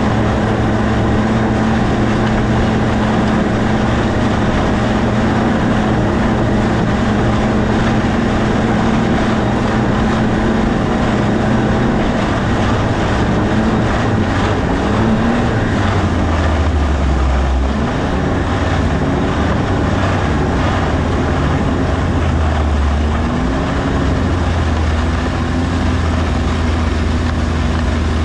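An engine running steadily for the first half, then its pitch drops and glides up and down in several swells as it is throttled.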